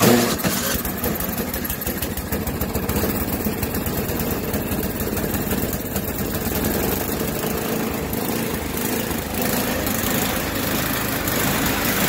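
Tecumseh 8 hp single-cylinder snowblower engine starting up and then idling, its loudness swelling and easing as it runs. This is the surging idle that fresh gas has not cured, which the owner suspects comes from a clogged carburettor screw.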